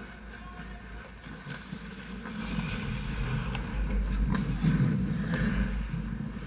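Ice hockey skates scraping and carving the ice, growing louder as players rush in on the goal, with a few sharp stick or puck knocks about three and a half to four and a half seconds in.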